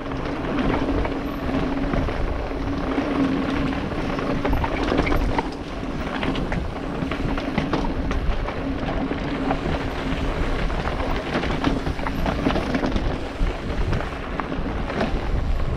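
Mountain bike descending a dirt forest trail, heard from a helmet camera: wind on the microphone and tyres rolling over dirt and roots, with frequent rattles and knocks from the bike over bumps and a steady low hum underneath.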